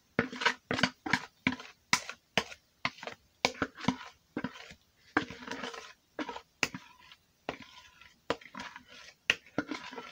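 A utensil scraping and knocking against a mixing bowl as thick batter is scraped out into a loaf pan: an irregular run of sharp taps and short scrapes, several a second.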